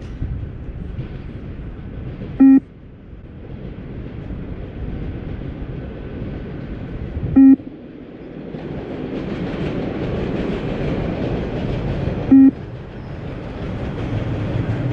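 Beep test recording sounding three short, loud, buzzy beeps evenly about five seconds apart, each marking the end of a 20 m shuttle at level thirteen, over a steady rushing noise.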